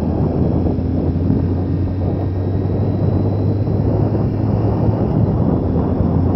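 Motorcycle engine running at a steady cruise, a constant low hum, with wind rushing over the microphone.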